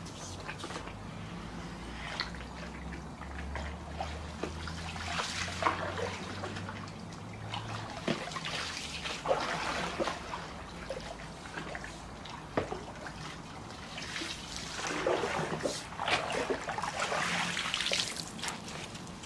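Water swishing and trickling in repeated strokes as a pole-mounted pool cleaning head is swept through the pool water. A low hum runs underneath and stops about eight seconds in.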